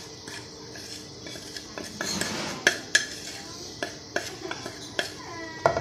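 Metal spoon scraping and tapping against a ceramic plate, with sharp clinks every half second to a second from about two seconds in, as spices are knocked off onto a plate of filling.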